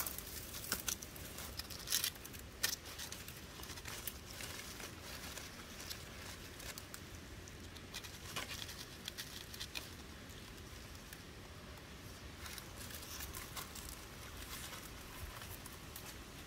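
Bare feet stepping over dry leaves and twigs and brushing through undergrowth: irregular soft crackling and rustling, with a few sharper snaps in the first three seconds.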